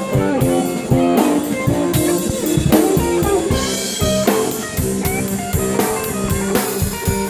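Live jam of two electric guitars played through amplifiers with a drum kit, drums and cymbals hitting steadily under sustained guitar notes.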